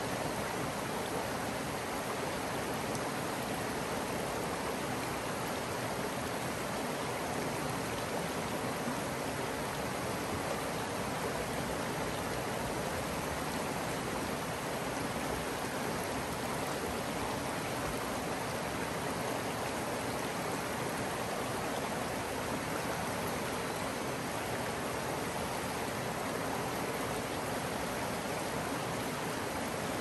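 Creek water flowing steadily, an even, unbroken wash of water sound.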